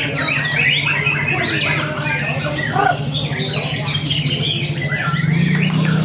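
Many caged competition songbirds singing at once: a dense, continuous tangle of quick chirps, trills and squawks overlapping one another.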